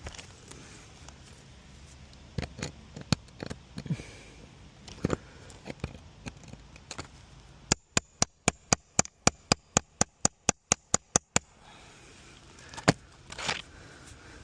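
Steel hammer striking a nail puller in a quick, even run of about sixteen sharp strikes, roughly four a second, driving it under roofing nails in asphalt shingles. Scattered knocks and scrapes of the tools on the shingles come before the run, and a couple more follow it.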